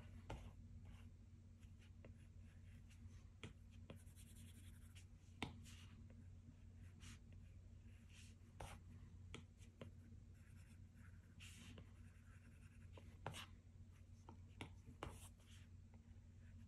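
Apple Pencil tip on an iPad Pro's glass screen while drawing: faint scattered taps as the tip touches down and a few short scratchy strokes, over a low steady hum.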